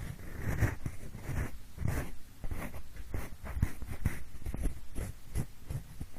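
Pencil tip scratching and rubbing in short, irregular strokes, several a second, made to imitate the sound of ear cleaning.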